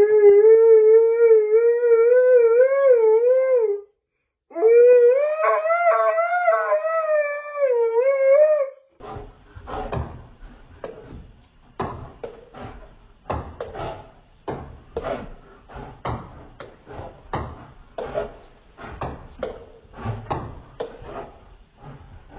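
A husky howling, two long wavering howls one after the other, followed by a run of quieter sharp irregular taps, about one or two a second.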